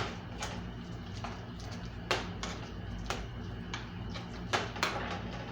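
Cooking utensil stirring rice into diced vegetables in a pan, giving irregular knocks and clicks against the pan, about eight in all, over a steady low hum.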